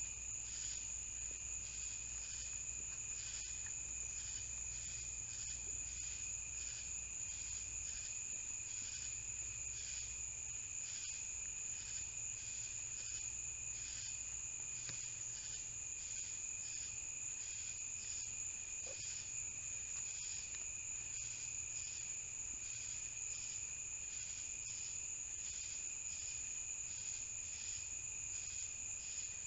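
Crickets singing in a steady night chorus: a continuous high trill with a regular pulsing chirp, about one and a half pulses a second, over it.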